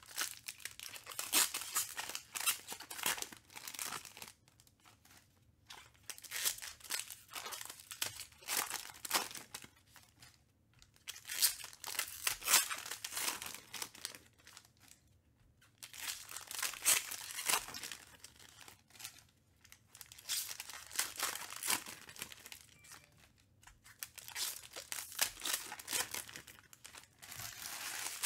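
Foil wrappers of 2021 Panini Prizm Baseball card packs being torn open and crinkled by hand, in repeated bursts of a few seconds with short pauses between.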